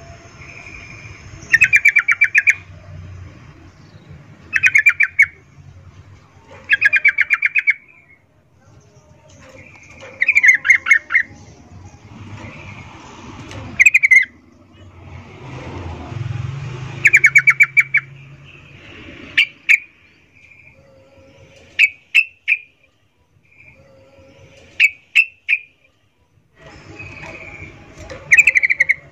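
Yellow-vented bulbul (trucukan) calling in its breeding condition, a female's call to draw males: bursts of rapid chattering notes, each about a second long, repeated every few seconds. In the second half these give way to short, sharp chips in twos and threes.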